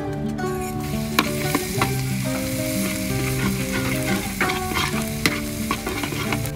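Chopped garlic sizzling in hot oil in a steel wok, starting about a second in, while a metal ladle stirs it and clicks and scrapes against the pan.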